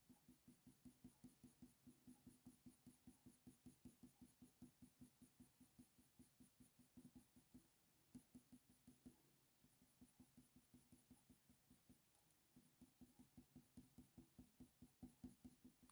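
Near silence with the faint scratch of a Faber-Castell Polychromos coloured pencil on hot-press watercolour paper, in short strokes about three a second that thin out midway and pick up again near the end.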